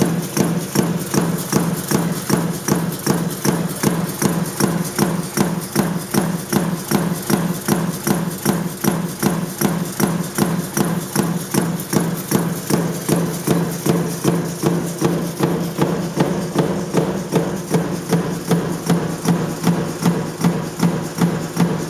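Mechanical punch press running continuously on a strip of sheet metal through a stamping die, each stroke a sharp metallic clack, about two to three a second, over a steady hum.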